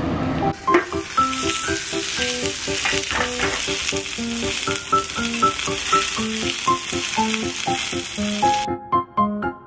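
Pan-fried dumplings sizzling in oil in an electric grill pan as their bottoms brown, under light background music. The sizzling cuts off suddenly near the end, leaving only the music.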